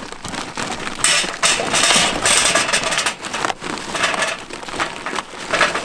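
Charcoal briquettes poured from a paper bag into a metal chimney starter, rattling and clattering against the steel while the bag rustles. The clatter starts about a second in and comes in several surges.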